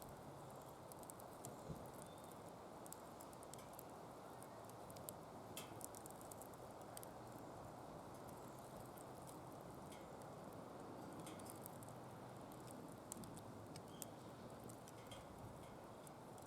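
Firewood burning in a DOD Mecha Moe Fire secondary-combustion fire pit, crackling with scattered faint pops and snaps over a steady low rush.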